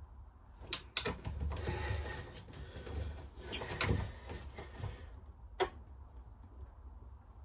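Clinks, knocks and rattles of hand tools and metal fittings being handled, with sharp knocks about a second in and again near the end, and a stretch of clattering and scraping in between.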